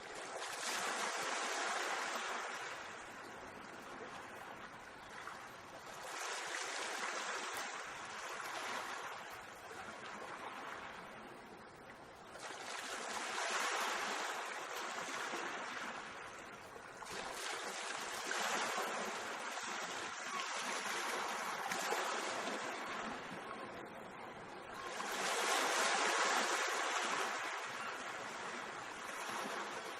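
Mediterranean sea waves washing in and breaking on the shore, the surf swelling and falling back about every five or six seconds.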